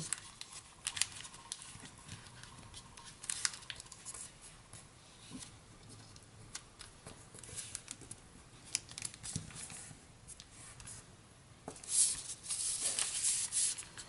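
Sheet of origami paper rustling and crinkling as fingers fold an edge to the centre line and press the crease, in short scattered scrapes and taps, busier and louder near the end.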